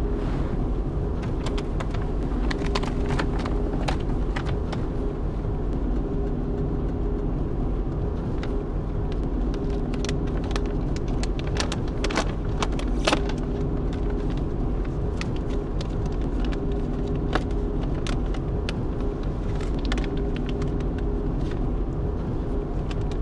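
Steady running drone of a car on the move, heard from inside the cabin, a low hum that holds one pitch throughout. Scattered small clicks and rustles sound over it at irregular moments.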